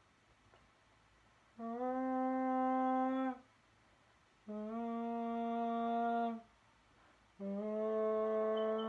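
A person humming three long held notes at a steady pitch, each about two seconds, with short pauses between; the third is still sounding at the end.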